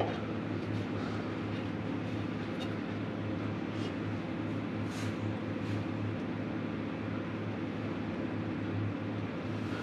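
Steady low mechanical hum, with a few faint short clicks as a combination wrench snugs a Dakota Digital oil pressure sensor into its threaded fitting.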